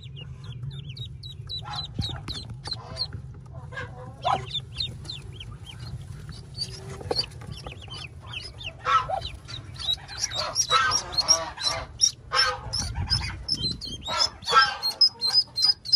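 Newly hatched ducklings peeping: a run of quick, high, falling peeps. From about nine seconds in, louder and denser calls join and the calling becomes busy as the ducklings are lifted out of the nest.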